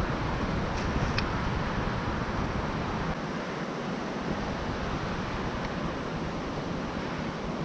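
Wind buffeting the microphone over a steady hiss of surf and road traffic. The low wind rumble eases about three seconds in, and there are a couple of faint clicks about a second in.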